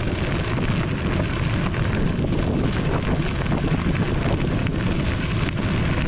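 Steady wind noise buffeting the microphone of a camera mounted on a moving bicycle, with the tyres rolling underneath.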